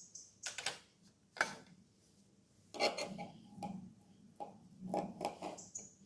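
A kitchen knife cutting into a sheet of clear slime as fingers press on it: short clicks and crackles, two on their own at first, then a denser, irregular run from about three seconds in.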